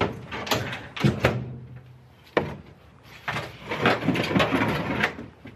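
A Ford Transit's bulkhead partition being worked loose and lifted out of the cargo area: a string of sharp knocks and bangs as the big panel strikes the van body, then a couple of seconds of scraping and clattering as it is tipped and slid free.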